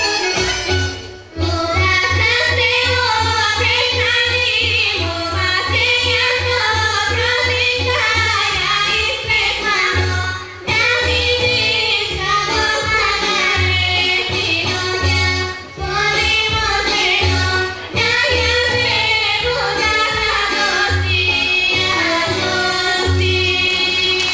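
Women singing a Bulgarian folk song over instrumental accompaniment with a steady low beat, pausing briefly between phrases.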